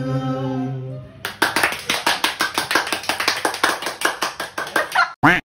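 A male voice holds a last sung note into a karaoke microphone, fading out about a second in. Then comes rapid, steady hand clapping, about six or seven claps a second, for almost four seconds, with a short loud vocal cry near the end that cuts off abruptly.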